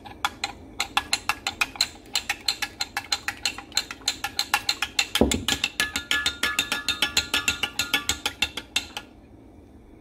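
Metal spoon stirring custard powder into milk in a glass measuring jug, clinking quickly against the glass about five or six times a second to break up lumps. The clinking stops about a second before the end.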